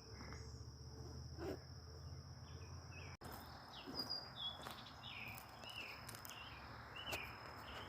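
Faint outdoor ambience: an insect's steady high-pitched trill runs throughout, and from about halfway through a bird gives a string of short repeated chirps. A few soft footsteps fall now and then.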